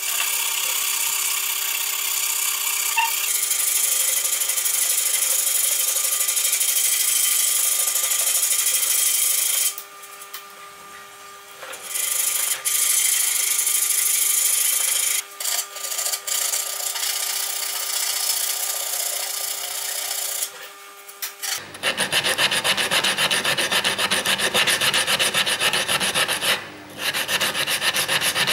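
Sandpaper rubbed by hand over the wooden frames of a boat-hull mold, a scratchy hiss that goes on steadily at first, then comes in shorter spells with brief pauses. About two-thirds of the way in it changes to quick, short back-and-forth sanding strokes.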